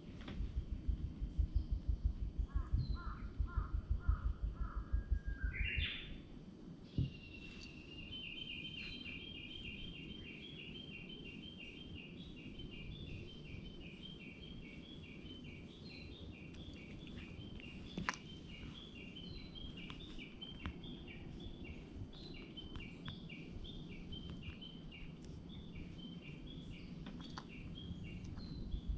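A low, rapid pulsing right at the microphone for the first six seconds. Then a high chirping call repeats evenly, a few short notes a second, for about twenty seconds over outdoor ambience.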